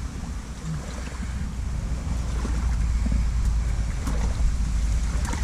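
Someone wading through a shallow, stony river: water sloshing around the legs, with a steady low wind rumble on the microphone and a few small knocks.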